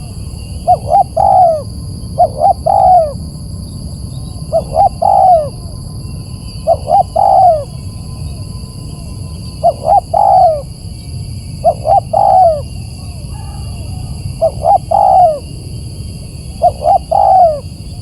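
Spotted dove cooing: a repeated call of two short notes and a longer falling coo, given eight times about every two and a half seconds.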